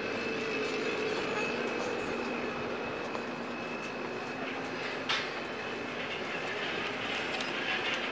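Steady rolling rumble over a faint steady hum inside a supermarket, with one sharp click about five seconds in.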